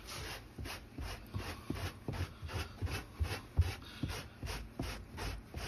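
Furviking pet hair remover scraper dragged in quick short strokes over a car's carpeted seat back, raking up pet hair: a scratchy rasp repeating about three times a second.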